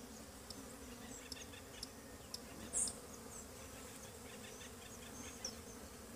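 Honeybees buzzing in a steady hum around an opened hive whose colony is queenless. Short high chirps sound above the hum, one louder than the rest about three seconds in.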